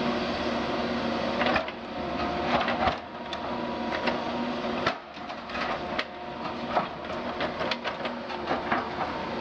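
Doosan DX180 LC crawler excavator's diesel engine and hydraulics running under load, the engine note dipping briefly a few times, with irregular sharp knocks and clatters throughout as the machine works.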